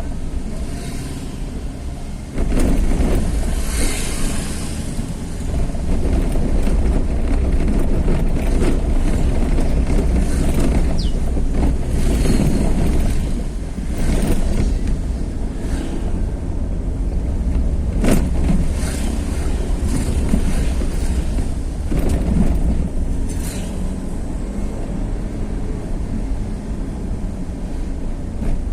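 Vehicle travelling along a road: steady low engine and road rumble, with occasional short jolts as it goes over bumps.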